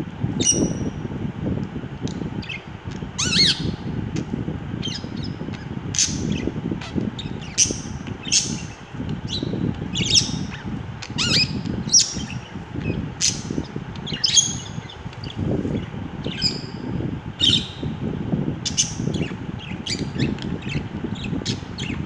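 Pet budgerigars chirping and squawking in short, sharp calls, about one a second, over a steady low background rumble.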